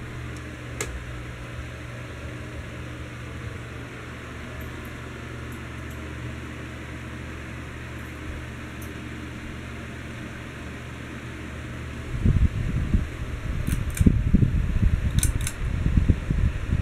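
Heritage ceiling fan running with a steady low hum. About twelve seconds in, a louder, uneven low rumble sets in, with a few sharp clicks near the end.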